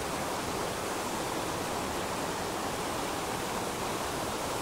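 A small rocky mountain stream running over riffles and a little cascade: a steady, even rush of water with no breaks.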